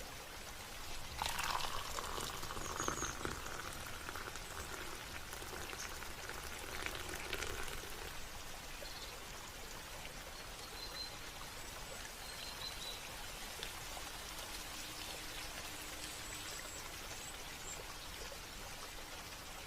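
Steady running and dripping water, with a louder stretch of splashing water in the first several seconds. A few faint, short, high bird chirps come and go.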